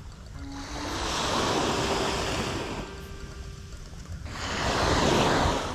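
Small waves washing up onto a sand beach: two swells of surf, one about a second in and another near the end.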